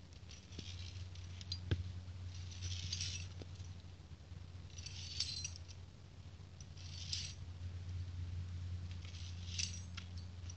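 Via ferrata carabiners clinking and scraping on the steel cables of a Tibetan bridge: several short metallic jangles and a few sharp clicks, over a steady low hum.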